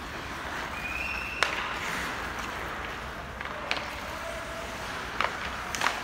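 Hockey game in play: a steady hiss of rink noise broken by sharp knocks of sticks and puck. The loudest knock comes about a second and a half in, just after a brief high squeak, and three more follow in the second half.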